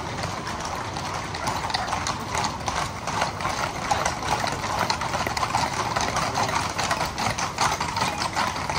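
Hooves of a column of horses clip-clopping on an asphalt street as mounted riders walk past at close range. The hoof beats overlap and grow denser about a second and a half in.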